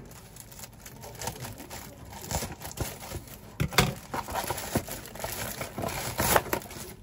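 Plastic wrapper of a chocolate protein bar crinkling and tearing as it is opened, in irregular rustles with louder crackles about four seconds and six seconds in.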